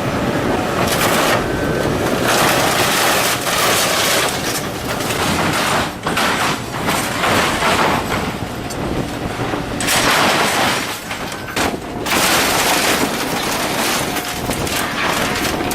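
Heavy scrap-processing machinery shredding and crushing B-52G aircraft scrap metal: a loud, continuous grinding and crunching with irregular louder surges and sharp cracks of tearing metal.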